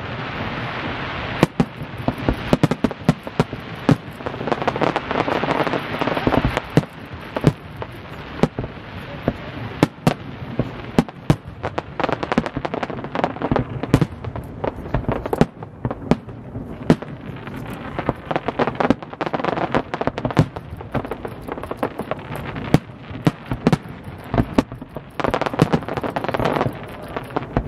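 Fireworks display: aerial shells bursting in a dense, irregular run of sharp bangs over a constant rush of noise.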